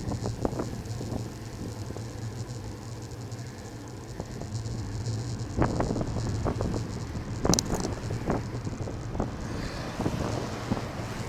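Wind on the microphone and road noise from a moving ride, with a steady low hum and scattered short knocks and rattles, including a sharp click about seven and a half seconds in.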